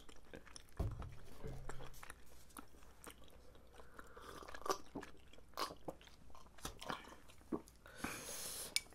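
Close-miked chewing of tteokbokki (spicy Korean rice cakes), with soft wet mouth clicks at irregular intervals. There is a low thump about a second in and a breathy hiss near the end.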